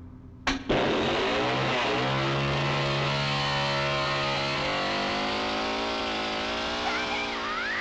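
A click, then a small two-stroke chainsaw engine starts and revs up, its pitch rising over the first second or so, then runs steadily at high revs, wavering in pitch later on.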